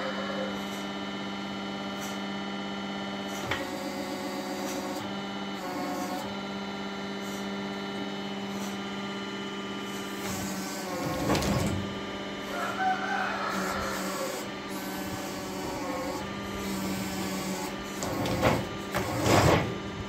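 Carpathian SMSA 110 semi-automatic sawmill running with a steady mechanical hum and whine. It grows louder and noisier about halfway through and again near the end.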